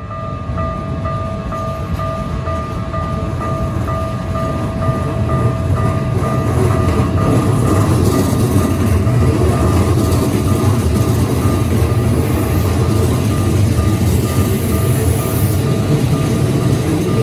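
Keikyu electric train passing over a level crossing: its rumble builds over the first few seconds, then stays loud with a hiss of wheels on rail. The crossing's warning bell rings in a steady repeating pattern throughout.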